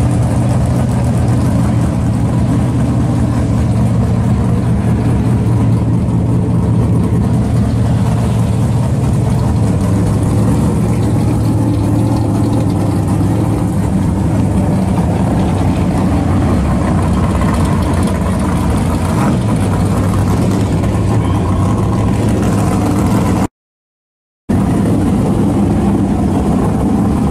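Pro-street Dodge Challenger R/T's engine idling steadily. The sound cuts out completely for about a second near the end.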